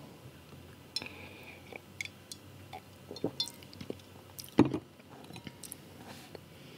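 Quiet sipping and swallowing from a drinking glass, with scattered small clicks and light handling noises, and one sharper knock about four and a half seconds in.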